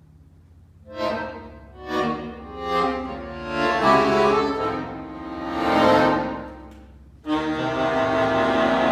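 Solo accordion playing concert music: after a brief pause, a series of swelling and fading chords, then a sudden loud held chord about seven seconds in.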